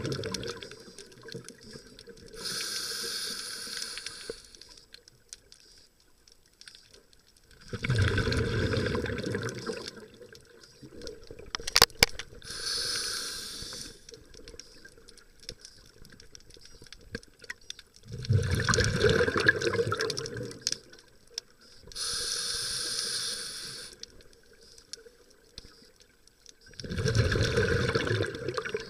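Scuba diver breathing through an open-circuit regulator, heard underwater: a hiss on each inhale and a long rush of bubbles on each exhale, about one breath every ten seconds. A single sharp click about twelve seconds in.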